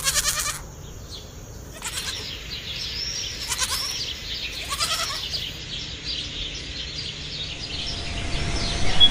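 Animal calls: a short pulsing cry right at the start, then repeated high arching chirps with a few lower cries among them, over a low steady hum.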